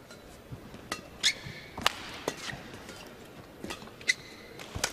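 A badminton rally: sharp cracks of racket strings hitting a feather shuttlecock, about half a second to a second apart, with short squeaks from court shoes on the playing surface.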